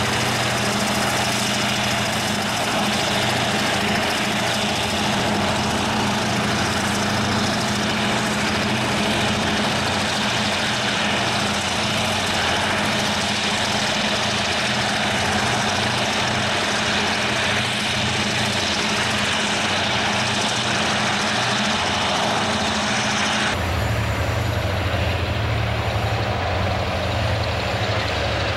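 Diesel-electric freight locomotives running, a steady engine drone under the dense rumble and hiss of the passing train. About three-quarters of the way through it switches abruptly to a stronger, lower engine hum with a fast, even throb.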